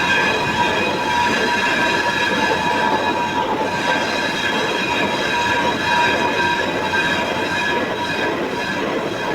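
Machine cutting a metal gear: a steady high-pitched squeal made of several held tones over a rough grinding noise.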